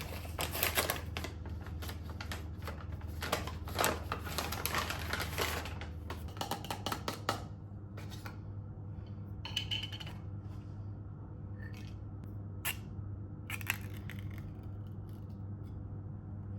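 Packaging being unboxed: dense crinkling and rustling with quick clicks for the first seven seconds or so, then a few scattered light clicks and taps. A steady low hum runs underneath.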